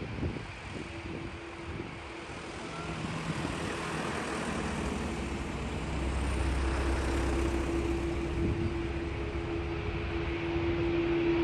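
Airbus A330neo's Rolls-Royce Trent 7000 turbofans running as the airliner taxis on the runway: a steady jet whine over a low rumble, growing gradually louder. Wind buffets the microphone in the first couple of seconds.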